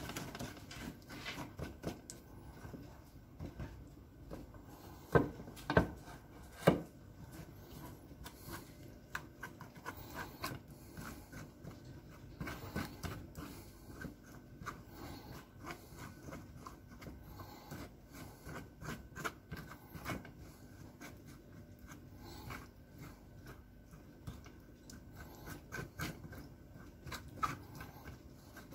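Wooden spoon scraping and pressing a thick sauce through a stainless-steel mesh sieve: a continual run of short scrapes and rubs, with three louder knocks about five to seven seconds in.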